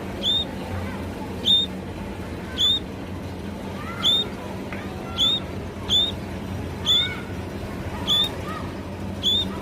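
Sparrow chirping: nine short, sharp chirps, about one a second, with fainter, lower chirps from other birds between them.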